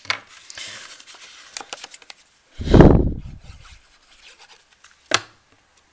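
Card and paper pieces handled and rustled on a craft table, with a heavy dull thud or bump a little before the middle, the loudest sound, and one sharp click about five seconds in.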